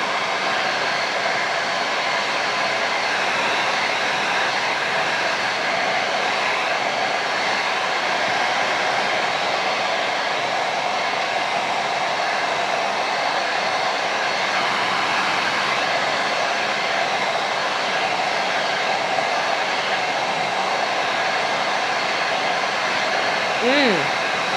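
Handheld hair dryer running steadily: a constant rush of air with a faint whine from its motor. Near the end a short tone rises and falls once over it.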